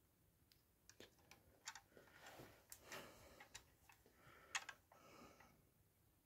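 Faint clicks and rustles of a model bus being handled and turned over in the hand, a string of small sharp clicks with a louder one near the end.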